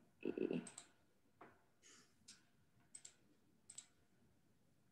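Faint clicks at a computer, about five of them spaced half a second to a second apart, with a short louder sound just before the first.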